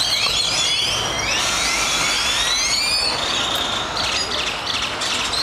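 A large flock of birds calling all at once: a dense, noisy chorus of overlapping, rising squeaky calls.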